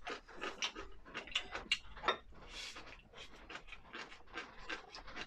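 A person chewing crisp raw radish close to the microphone: a run of quick, irregular wet crunches and mouth clicks.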